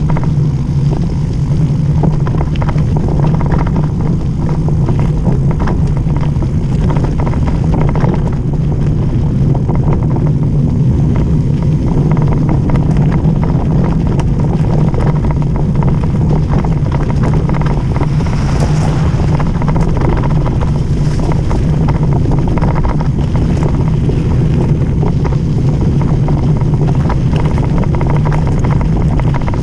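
Mountain-bike descent on wet gravel: steady wind rumble on the camera microphone over the roll of knobby tyres, with frequent small clicks and rattles from stones and the bike. A brief brighter hiss comes about two-thirds of the way through.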